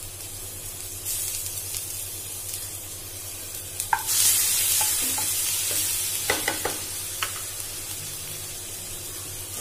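Garlic paste sizzling in hot oil in a non-stick kadhai while a wooden spatula stirs it. The sizzle grows much louder about four seconds in, and the spatula knocks lightly against the pan a few times.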